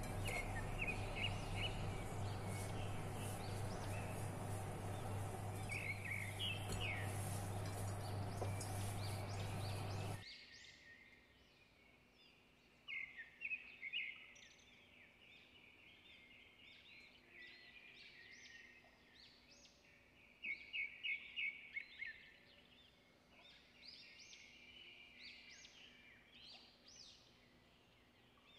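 Small birds chirping in quick runs of high notes, with several rapid flurries. A steady hum and hiss lies under them and cuts off abruptly about ten seconds in.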